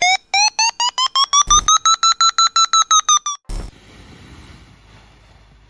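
Electronic logo sound effect: a rapid string of beeps, about seven a second, climbing in pitch and then levelling off and dipping slightly, punctuated by sharp hits about a second and a half in and again after three and a half seconds. It then gives way to faint outdoor wind noise.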